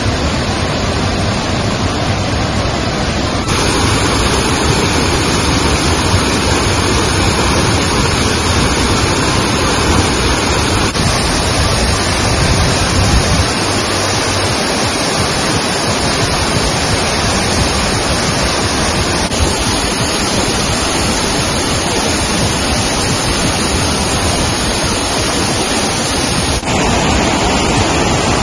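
Waterfall: a steady, loud rush of falling water, its tone shifting abruptly a few times.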